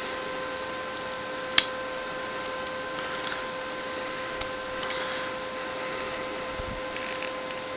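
Plastic model kit being handled, with a sharp click about a second and a half in and a fainter click later, over a steady faint hum.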